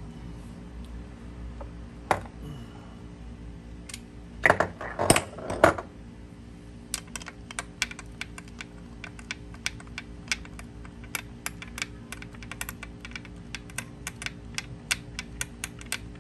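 Ratchet wrench clicking in quick, even strokes, about four clicks a second, as the bolts of an outboard starter are run in. Before it come a single knock and a short clatter of metal on metal.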